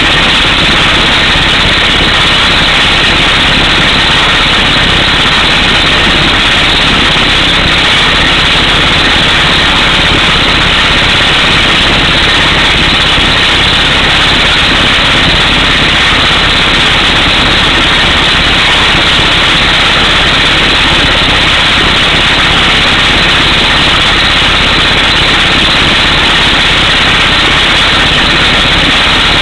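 Air hammer on a truck-mounted drill rig boring an 18-inch hole through solid rock: a loud, continuous hammering din with no pauses, mixed with engine noise.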